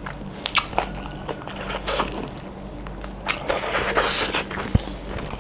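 Close-miked eating sounds of mutton curry eaten by hand: sucking and smacking on a mutton bone and wet mouth clicks, with a sharp click near the end.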